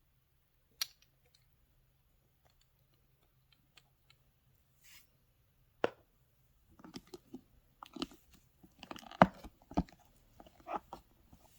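Cosmetic packaging and cases being handled: a sharp click just under a second in and another near six seconds, then a busy run of taps, rustles and knocks through the second half, the loudest a knock about nine seconds in.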